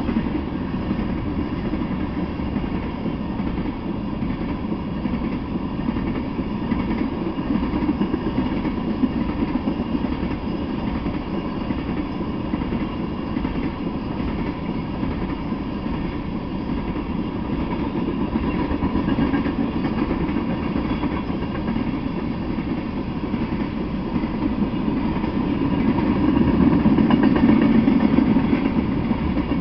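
Freight train of tank cars rolling past: a steady rumble of wheels on rail, swelling louder near the end.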